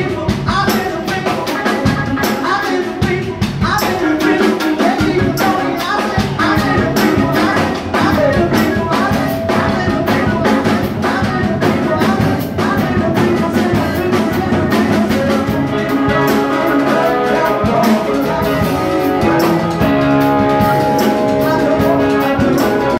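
Live rock band playing amplified: drum kit keeping a steady beat under electric guitars and a keyboard, with singing into microphones.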